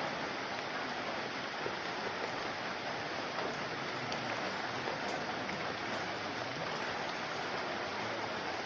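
Steady heavy rain, an even, unbroken rushing downpour.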